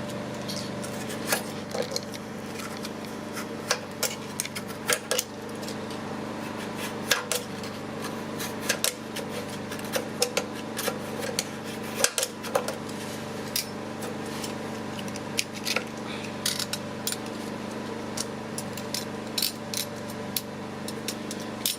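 Hand tool scraping and clicking against a MDF door surface in irregular sharp strokes, over a steady background hum.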